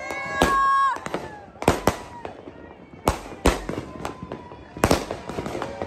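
Ground-launched consumer fireworks going off: about seven sharp bangs at irregular intervals of roughly half a second to a second and a half, with people shouting over the first of them.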